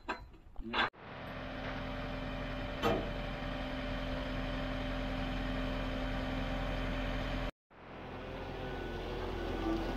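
Boat travel lift's engine running steadily while the lift moves a sailboat in its slings, with one sharp knock about three seconds in. The sound cuts out briefly a little past seven seconds and comes back.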